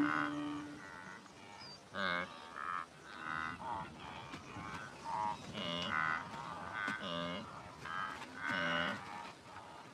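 Wildebeest calf calling: a run of short, pitched bleating calls, one or two a second, starting about two seconds in.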